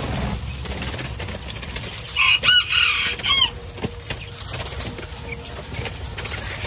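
Penned quail fluttering and flapping their wings, with a burst of short, high calls about two and a half seconds in and one more a second later.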